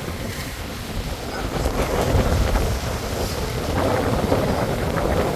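Sea water rushing along the hulls of a sailing catamaran under way, with wind buffeting the microphone; the rush swells about a second and a half in.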